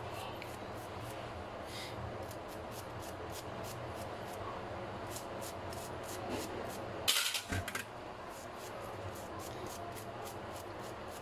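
Small bristle brush scrubbing a metal clarinet key in soapy water: repeated short scratchy strokes of the bristles on the key, with a brief louder rattle about seven seconds in.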